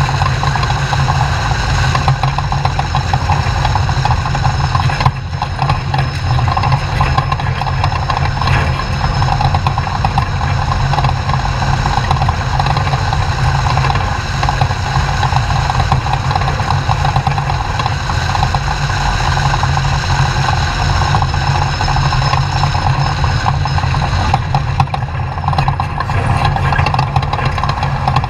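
Desert off-road race truck driving at speed: its engine runs hard under a loud, steady low rumble with rough road noise.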